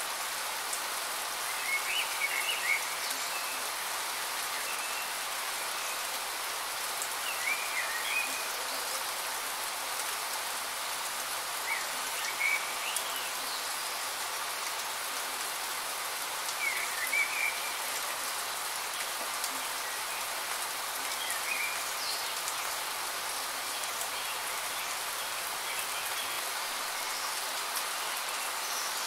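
Steady rain falling, a dense even hiss, with short chirps breaking through about every four to five seconds.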